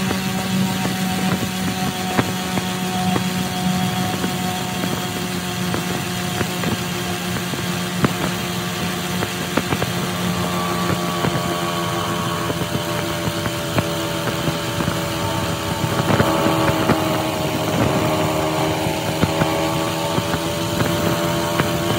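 Motorcycle engine running steadily while riding, over a constant rush of road noise. The engine note shifts and climbs a little about sixteen seconds in, briefly getting louder.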